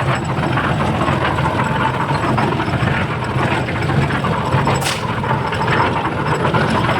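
An engine running steadily, with a single sharp click about five seconds in.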